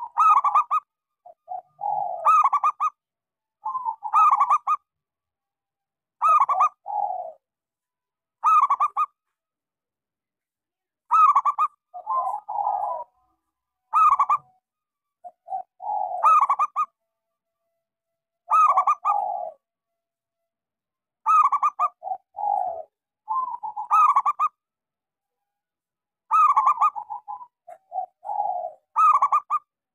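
Zebra dove (local perkutut) singing: short trilled cooing phrases, repeated every two to three seconds with brief silences between.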